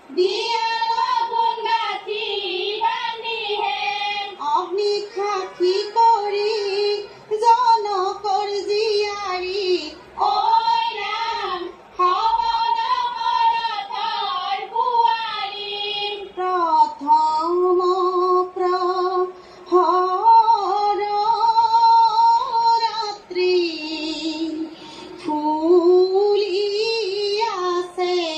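A woman singing an Assamese biya geet (traditional wedding song) in a high voice, in long melodic phrases with short breaks between them. It is heard through a television's speaker.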